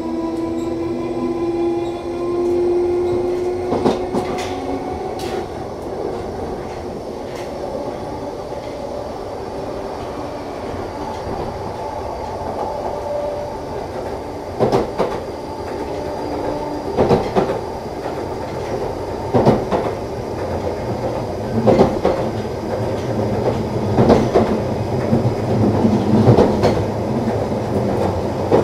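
A London Underground 1972 Stock train running between stations, heard from inside the car. It is a steady running hum with a whine that fades after about four seconds. From the middle on, the wheels clack over rail joints about every two seconds.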